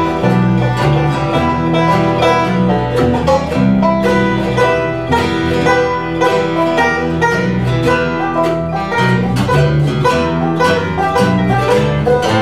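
Bluegrass band playing an instrumental passage: five-string banjo, mandolin and acoustic guitars picking together in a steady rhythm.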